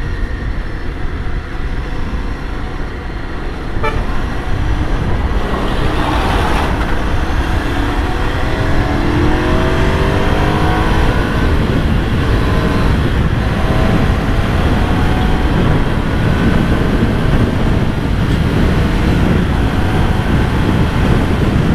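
Ducati Scrambler 400's air-cooled L-twin engine under acceleration, its pitch climbing in several rising sweeps from about eight seconds in, over heavy wind rush on the microphone.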